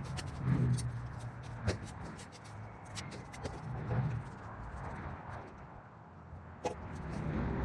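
Fallen sticks and yard debris being raked and gathered: scattered clicks of twigs knocking together over a low, uneven rustle, with a sharper crack near the end.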